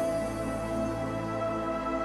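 Background music: calm, sustained instrumental tones in a new-age style.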